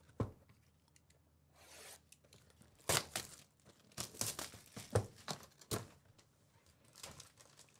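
Plastic shrink-wrap being torn and crinkled off a trading-card hobby box. It comes as a run of sharp crackles from about three seconds in, thinning out after about six seconds.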